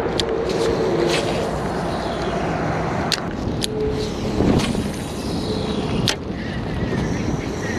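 Wind rumbling steadily on the microphone, with a few sharp clicks from handling the rod and baitcasting reel during the retrieve.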